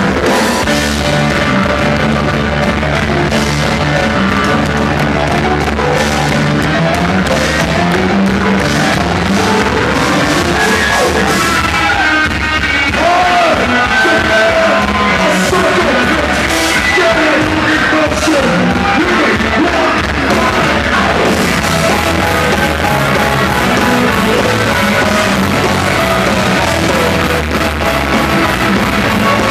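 Live hard rock band performing loudly, with distorted guitars, drums and a shouted, yelled lead vocal.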